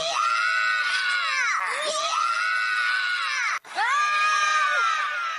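Cartoon girls' voices screaming: long, high-pitched screams, broken by an abrupt cut about three and a half seconds in before the next scream starts.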